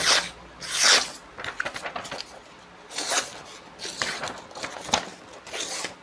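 Blunted chef's knife dragged through a sheet of paper in about six short scratchy strokes, tearing and rustling the paper instead of slicing it cleanly: the sign of a dulled edge.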